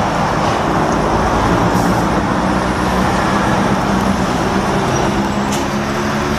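DAF XF lorry's diesel engine running as the tractor unit pulls slowly forward, a loud steady low drone. Two brief sharp noises come about two seconds in and again about five and a half seconds in.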